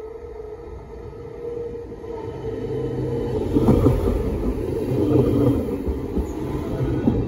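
Alstom Coradia LINT 41 diesel multiple unit approaching and passing close by. A steady hum swells into the loud rumble of its engine and wheels on the rails from about three seconds in, with a couple of sharp knocks as it goes past.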